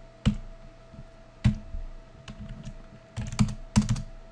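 Computer keyboard keys being pressed: a couple of single clicks, then a quick run of presses about three seconds in, as digits are deleted from a number field. A faint steady hum runs underneath.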